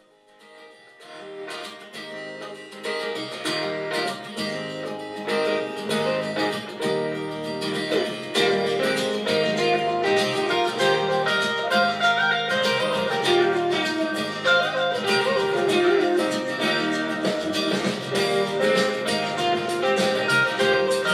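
Music playing through a pair of Chifenchy Bluetooth golf speakers. It starts from near silence and swells up over the first few seconds, then plays loud.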